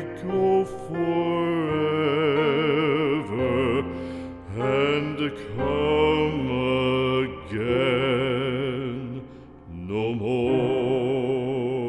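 Slow ballad music: long held sung notes with wide vibrato, phrase after phrase with short breaks between, and a dip about nine seconds in before another long note.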